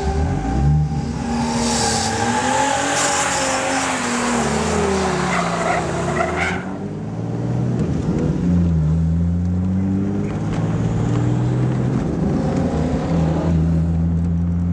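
Turbocharged RB30 straight-six in a Holden Torana revving hard while the rear tyres squeal and skid in a burnout, heard from inside the car. The tyre noise cuts off suddenly about six and a half seconds in, and the engine keeps running as the car drives off, its pitch rising again.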